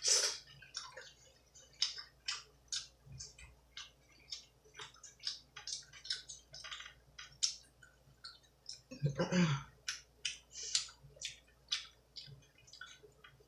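Close-miked wet chewing and lip-smacking of a mouthful of pizza: irregular short smacks and clicks, two or three a second, with one louder, lower mouth sound about nine seconds in.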